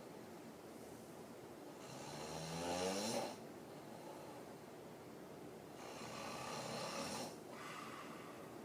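A woman snoring hard with her mouth open while lying asleep on her back. There are two snores about four seconds apart: the first is louder, with a clear pitch that rises through it, and the second is softer and breathier.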